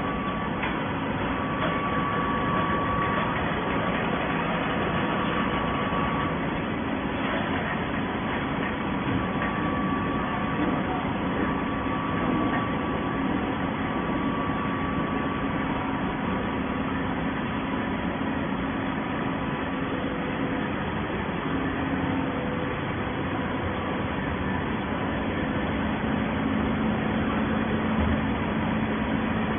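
Auto-binding PET bottle baler running steadily, a constant mechanical hum with a few held tones over it.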